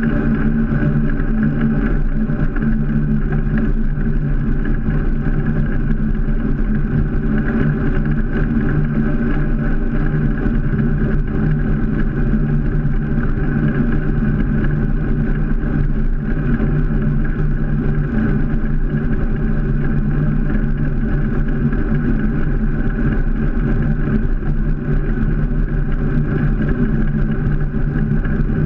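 Steady ride noise of a BMX bike rolling on asphalt, picked up by a camera mounted right beside the wheel: tyre and road rumble with a constant droning hum.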